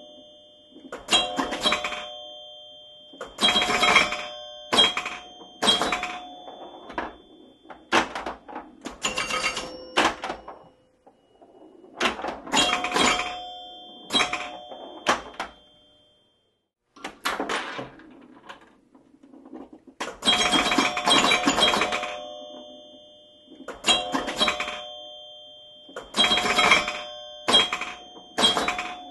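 Pinball machine in play: bursts of sharp mechanical clacks from flippers and solenoids, mixed with ringing bell chimes that sound out and die away. The bursts come in irregular clusters with short pauses between them, and twice fall almost silent.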